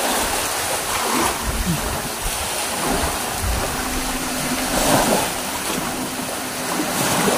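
Steady rushing noise of wind and water, with an uneven low rumble underneath.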